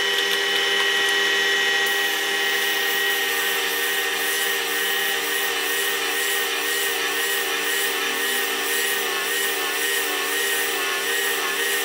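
Parkside PBTS 370 B2 combined belt and disc sander running steadily with a motor whine and the hiss of abrasive on wood. A wooden piece is being ground against the sanding disc through the mitre guide. From about two seconds in, the whine wavers as the wood is pressed into the disc.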